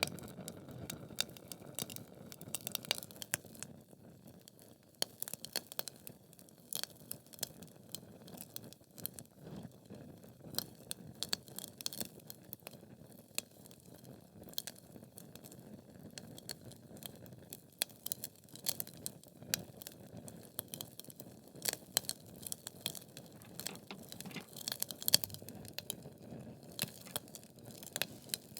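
Wood fire burning in a fireplace: logs crackling and popping in irregular sharp snaps over a low, steady rush of flame.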